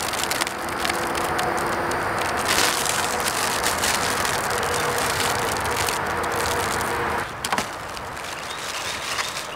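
Thin plastic protective film crinkling and crackling as it is peeled off a MaxxAir roof fan's lid and crumpled by hand, with many sharp crackles, dropping off about seven seconds in.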